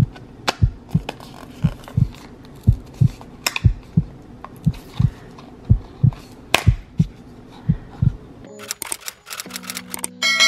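Heartbeat sound effect, low double thumps about once a second, with three camera-shutter clicks over it. Near the end a quick run of clicks and a steady low tone give way to a bright bell ding, the subscribe-button sound effect.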